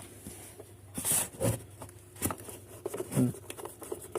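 Scattered light clicks and taps of a screwdriver and the plastic tail-light housing as the tail-light screws on a Honda Biz 100 are snugged up, with a short hiss about a second in.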